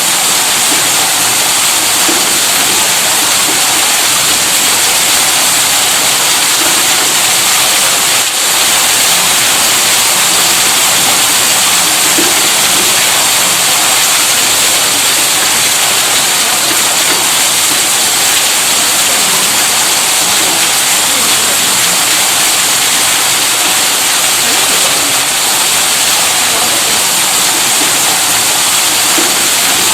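Tube well's electric pump running, with water gushing from its outlet as a steady, even rushing.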